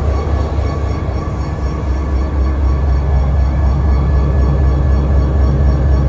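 CSX diesel locomotive running, a steady heavy low rumble with faint steady whining tones above it, heard on board the locomotive; a slightly deeper tone joins about three seconds in.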